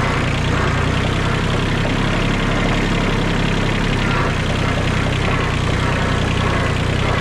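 Kubota B20 backhoe's diesel engine running steadily at an even speed.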